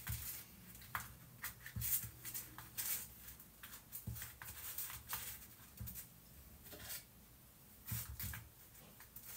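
Metal teaspoon scraping and tapping inside foil-lined paper cupcake cases as biscuit crumb is spooned in and pressed down for a cheesecake base: faint, irregular small clicks and scrapes.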